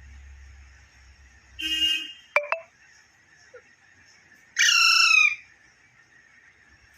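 Pet parrot calling: a short squawk, then two quick whistle-like sweeps, then a longer, louder call that falls in pitch about halfway through.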